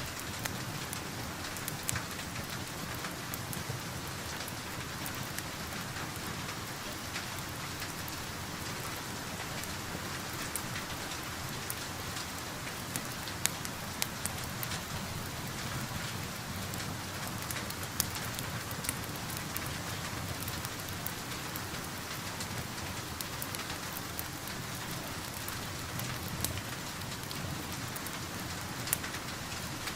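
Steady rain heard from indoors, with scattered sharp clicks every few seconds.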